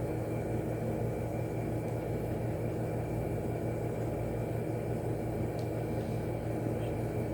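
Steady low background hum and rumble, even throughout, with no distinct events.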